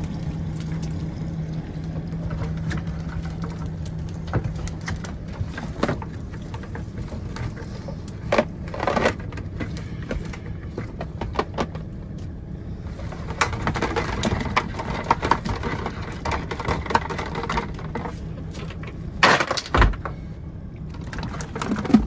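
A steady low hum from the boat, then water and live baitfish pouring and splashing out of a cast net into a plastic bucket, with knocks and rattles of the net and bucket and a sharp loud hit near the end.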